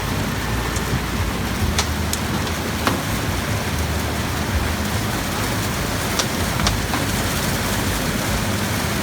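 Ginseng root washing machine running: a steady rush of spraying water with a few scattered light clicks.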